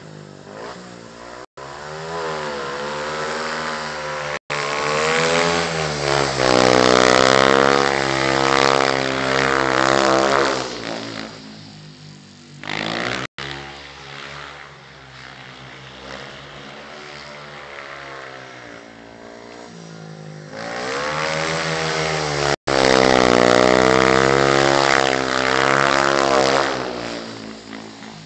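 A lone speedway bike's single-cylinder 500 cc engine lapping the shale track, its pitch rising and falling as the throttle is opened and shut. It grows loud twice, from about five and about twenty-one seconds in, as the bike comes close, and fades between as it runs down the far side.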